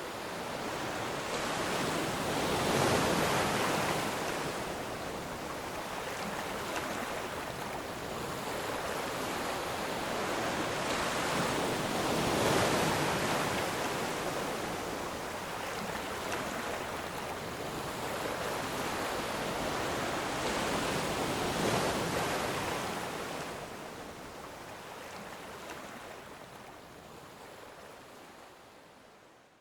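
Sea waves surging and washing on the shore, swelling and ebbing every few seconds, fading out near the end.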